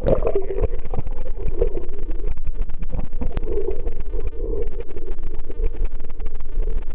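Muffled underwater noise picked up by a submerged camera: a sudden jump in level as it goes under, then a steady low rumble with many small crackles.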